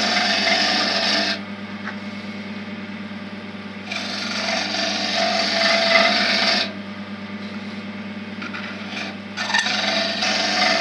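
Wood lathe running with a steady hum while a chisel cuts a spinning pen blank, rounding over its end. The hiss of the cut comes in three passes: one at the start, a longer one from about four to nearly seven seconds in, and another from about nine and a half seconds in.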